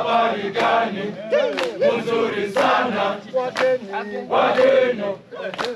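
A group of voices singing and chanting together, loud, with shouts and whooping pitch slides.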